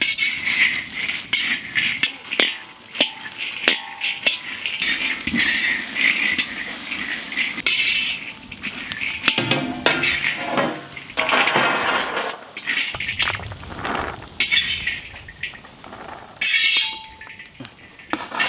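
Perforated metal skimmer stirring and scraping dry-roasting peanuts around a wide metal kadai, the nuts rattling and clinking against the pan in repeated irregular strokes.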